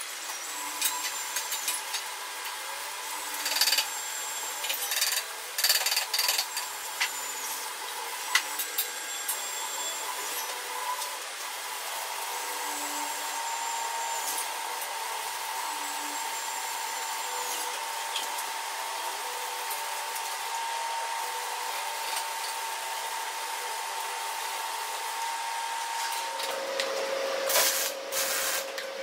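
Steel line-boring bar and bearing hardware being handled on a heavy equipment hitch: scattered metal knocks, clanks and short scraping slides during the first ten seconds or so, then a steady high hum. A second, lower hum starts near the end, with two loud rasping noises just after it.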